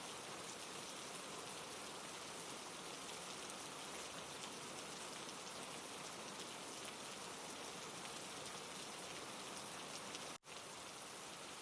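Recorded waterfall ambience: steady rushing water hiss, dropping out for a split second near the end.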